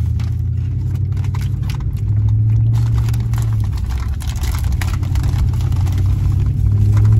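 Car cabin drone from a moving vehicle: a steady low engine and road hum that rises in pitch about two seconds in, drops back, and rises again near the end. Scattered short crackles sound over it.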